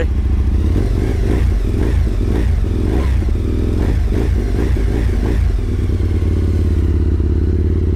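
Aprilia 1000 cc V-twin motorcycle engine running on fast idle, freshly restarted after its flooded cylinders were cleared. It runs unevenly, rising and falling, for about five seconds, then settles into a steady idle.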